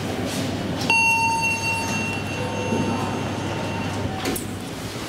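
A steady electronic beep comes in suddenly about a second in and holds for about three seconds, over a constant low rumble. A click and a brief shorter tone follow near the end.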